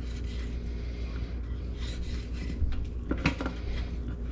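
A fillet knife scraping and slicing along a brown trout's backbone on a wooden fillet board, in soft strokes, with one sharp knock against the board a little after three seconds in. A steady low hum runs underneath.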